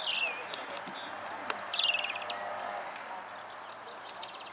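Songbirds singing in short phrases of high chirps and trills: a quick trill about two seconds in and a run of falling chirps near the end, over a steady outdoor hiss.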